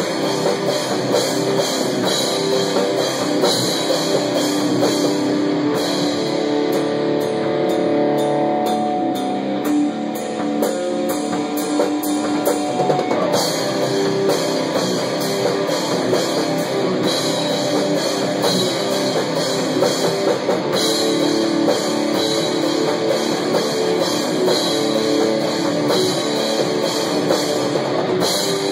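Rock band playing, drum kit and electric guitar together. The cymbals ease off for several seconds in the middle, leaving held guitar notes, before the full band comes back in.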